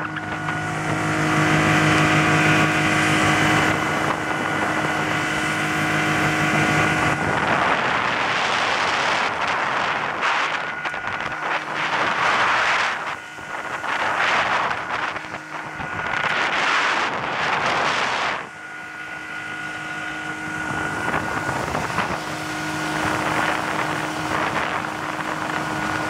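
Outboard motor running steadily at speed, a constant engine drone. Through the middle stretch, from about seven seconds to eighteen, wind buffets the microphone in gusts that drown it.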